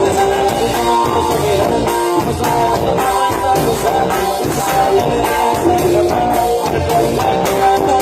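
Live band playing at a sound check: a guitar melody over drums.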